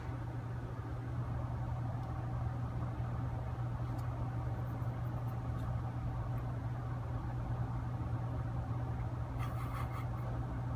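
Steady low machine hum over a faint hiss.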